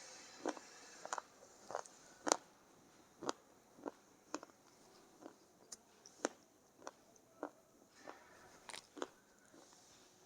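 Edible clay (Punjab ki mitti) being crunched between the teeth: a run of sharp, irregular crunches, roughly one or two a second, the loudest a little over two seconds in. The clay breaks into a dry powder as it is chewed.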